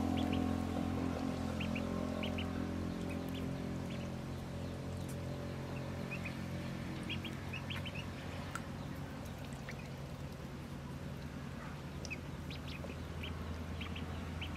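Ducklings peeping: many short, high calls scattered throughout, a few at a time, over a steady low hum.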